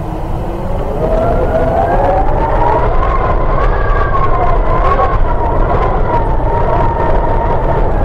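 Quadcopter drone's propellers whining, several close tones that rise slowly in pitch and then ease back down, over a heavy low rumble of wind on the microphone.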